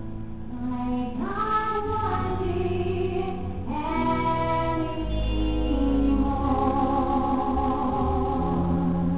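Live musical-theatre singing: female voices with a pit orchestra, the sung lines sliding up into held notes about one and four seconds in, over sustained low orchestral notes, with a held, wavering note later on.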